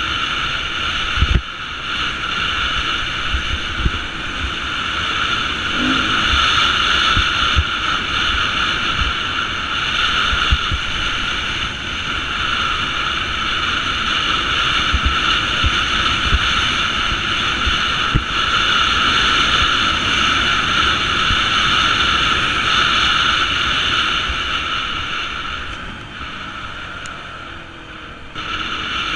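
Beta 350 dirt bike engine running steadily under way on a dirt trail, with wind buffeting and bumps on the helmet camera's microphone. The engine eases off and quietens briefly near the end, then picks up again.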